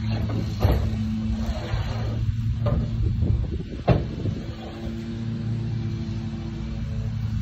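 A vehicle engine idling steadily, with a few sharp knocks and clatters over it, the loudest about four seconds in.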